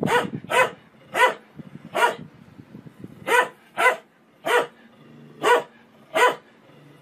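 A dog barking repeatedly: nine short, sharp barks about half a second to a second apart, with a pause of about a second after the first four.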